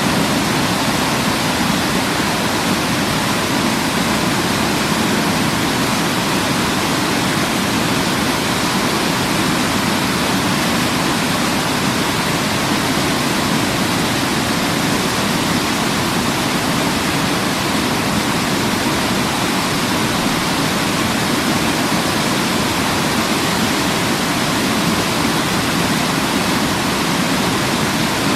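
Waterfall: a steady, even rush of falling water with no change or break.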